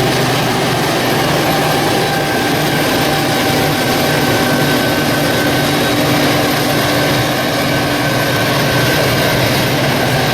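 Engine running at a steady speed: a constant droning hum with a few fixed pitches over a rushing noise, unchanging throughout.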